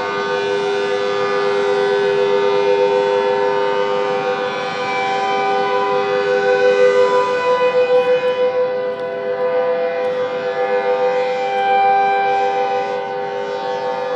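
Several outdoor warning sirens sounding at once across the city, their long steady tones overlapping at different pitches and swelling and fading in loudness.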